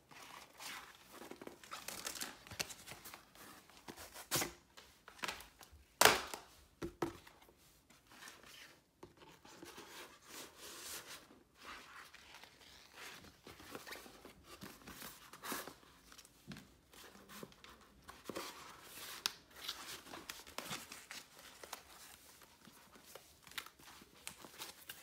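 Hands handling a planner in a clear plastic cover: scattered rustling, crinkling and light tapping of plastic and paper, with one sharp knock about six seconds in.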